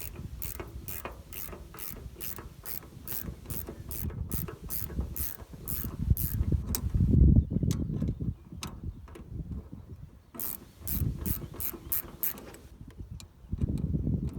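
A ratcheting spanner clicking steadily, about three clicks a second, as it turns the nut of a PTO-shaft shear bolt. The clicking pauses briefly twice, over a low rumble that is loudest about halfway through.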